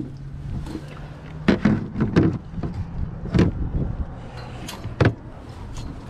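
Hollow plastic knocks and clunks, about half a dozen, as a plastic cooler and a plastic tray are handled and shifted on a concrete surface.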